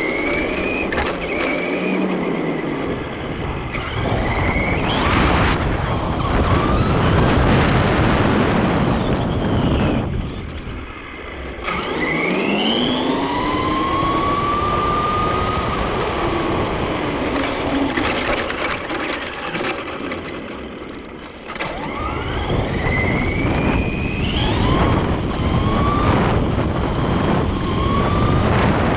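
Traxxas RC truck driving on asphalt, heard from on board. Its motor and gears give a whine that rises in pitch again and again as it speeds up, over a constant rumble of tyres on the road and wind. It eases off briefly twice, about a third of the way in and again about two-thirds through.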